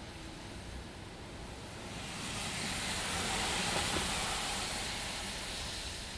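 A car passing on a wet road: the hiss of tyres on water rises about two seconds in, is loudest near the middle, then fades away, over steady rain.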